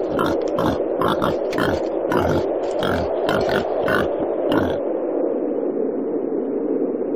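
Wild boar grunting in a rapid series of short grunts, about three a second, over a steady rushing noise. The grunts stop about two-thirds of the way through, leaving only the noise.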